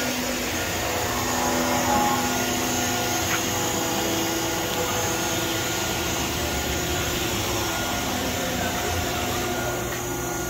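Industrial machinery running with a steady whir and hum, several steady tones over an even noise, with a faint tick about three seconds in.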